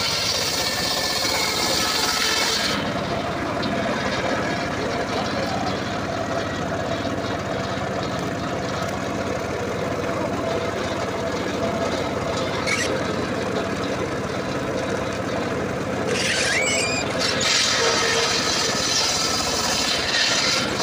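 Homemade circular sawmill running steadily on its engine, its blade cutting through dry acacia wood: a loud high hiss of sawing over the engine note for the first few seconds, then again for about four seconds near the end.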